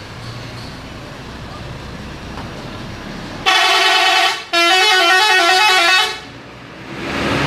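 Bus 'telolet' multi-tone musical horn: one held chord for about a second, a brief break, then a quick stepping melody for about a second and a half. Low engine and traffic rumble runs under it, and vehicle noise rises near the end.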